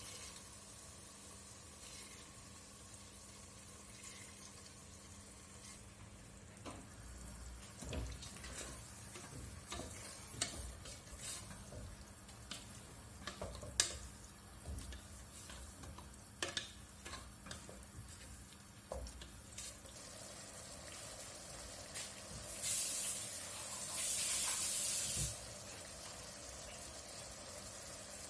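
Cooking in a pan: a quiet steady hiss, then a spoon stirring with many scattered clinks and knocks, then a few seconds of loud hissing near the end that stops suddenly.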